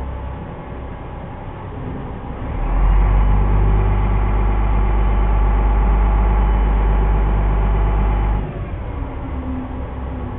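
Small car ferry's diesel engine running, throttled up about two and a half seconds in to a loud, steady, deep run for about six seconds, then easing back to a low idle near the end as the boat manoeuvres onto its landing ramp.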